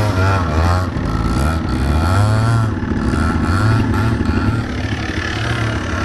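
Yamaha Big Wheel 80's small two-stroke single revving up and down in first gear as it pulls through snow, its pitch rising and falling over and over. A second engine idles close by.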